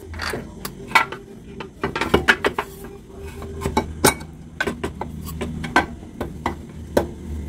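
Metal parts clinking and knocking irregularly as an axle spacer and the swing arm are worked over the rear axle of a Honda Click 125 scooter by hand.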